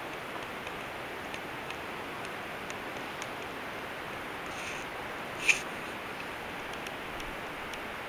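Steady, even outdoor hiss, with faint scattered ticks and one sharp click about five and a half seconds in.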